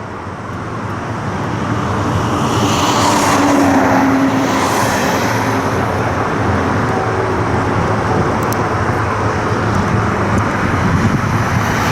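Jet aircraft engine noise, swelling over the first few seconds and then holding steady.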